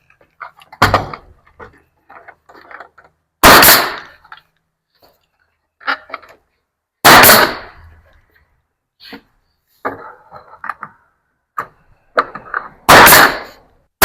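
Bostitch pneumatic coil siding nail gun firing nails into wooden trim boards: several loud, sharp shots a few seconds apart, with lighter knocks of wood between them.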